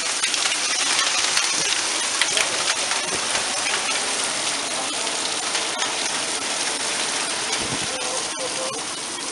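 Torrential wind-driven rain from a severe thunderstorm, a dense steady hiss with scattered sharp ticks of drops striking.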